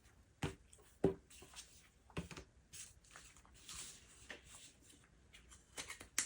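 Plastic RC car kit parts being handled: a few light clicks and knocks, with soft rubbing and rustling between them.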